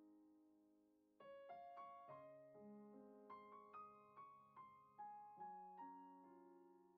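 Quiet solo piano music. A held chord dies away, then from about a second in a slow melody of single notes plays over low chords.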